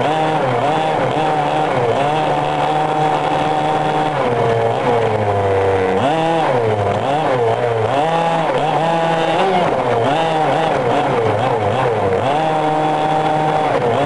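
Small two-stroke engine of a radio-controlled monster truck revving up and down over and over as it drives, its pitch rising and falling, with a steadier held stretch partway through.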